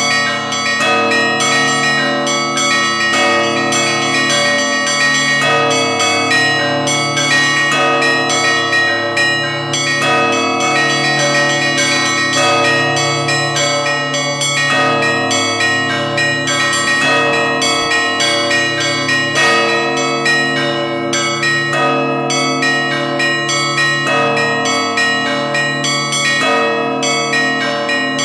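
Many church bells of the Moscow Kremlin ringing together in a continuous Russian Orthodox peal, with quick strikes on the smaller bells over the steady hum of larger ones. The ringing pattern repeats about every two and a half seconds.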